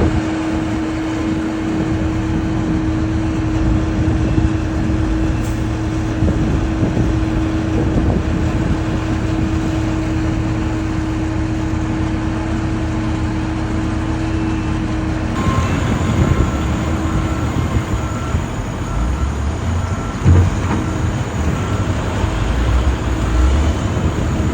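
Steady vehicle rumble with a continuous hum, which changes abruptly about fifteen seconds in to a different rumbling noise with faint, evenly repeated short high tones.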